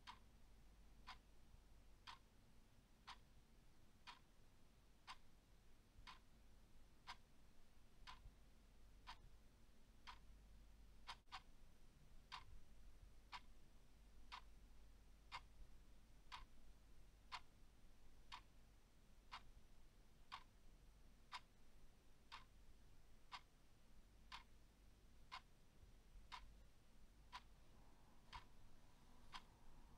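Clock ticking faintly and evenly, about one tick a second.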